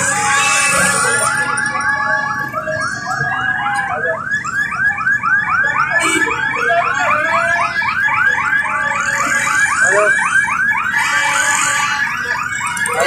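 An electronic siren-style warble sounding without a break: a fast repeating swooping tone, several swoops a second.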